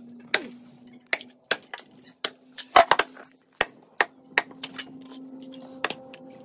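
A heavy chopping knife hacking through a whole chicken's bones and meat into a chopping block. The sharp chops come irregularly, about two or three a second, some in quick doubles.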